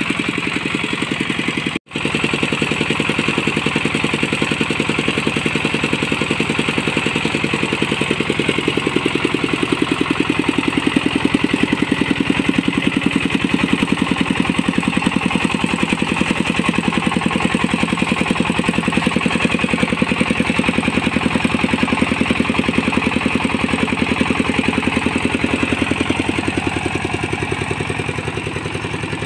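Single-cylinder diesel engine of a homemade rice-huller vehicle running steadily at an even beat while the vehicle drives slowly. The sound cuts out for an instant about two seconds in.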